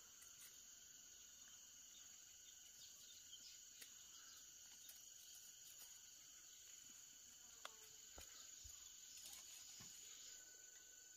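Faint, steady chirring of an insect chorus, with scattered soft clicks and ticks, the sharpest about two-thirds of the way through.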